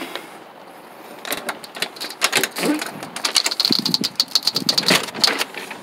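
Front door of a manufactured home being opened: a quick run of clicks and knocks from the storm door, handle and latch, with a thin high squeak in the middle.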